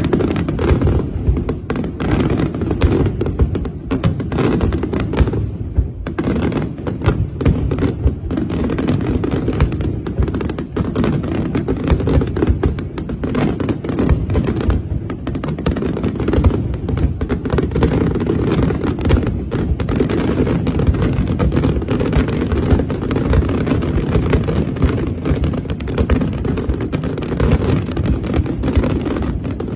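Fireworks display in full barrage: a dense, continuous run of bangs and crackling bursts, many a second, over a deep rumble.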